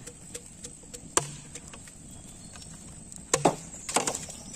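Scattered sharp wooden knocks and clicks of bamboo being handled. The loudest comes about a second in, and a cluster of knocks comes near the end.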